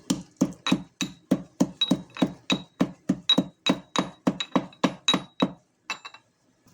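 Pestle pounding fresh ginger and whole spices in a mortar: steady strokes, about three or four a second, each with a short ring. The pounding stops about five and a half seconds in.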